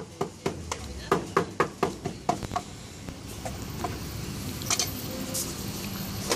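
Meat cleaver chopping cooked pork head meat on a chopping block, quick even knocks about four a second, stopping about two and a half seconds in; after that only a few lighter knocks of the cleaver against the block.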